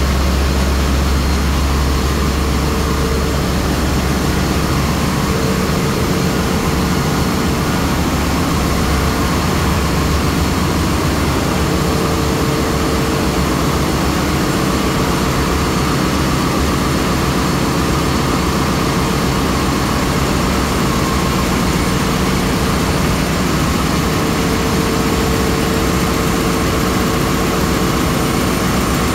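Loud, steady engine-room din of running marine diesel machinery, with a Wärtsilä in-line diesel engine running up close. A deep low rumble is strongest in the first five seconds or so, then eases.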